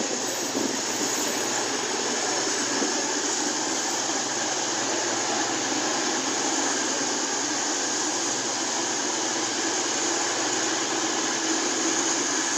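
Steady noise of an East Midlands Railway Class 222 Meridian diesel-electric unit standing at the platform with its underfloor engines idling.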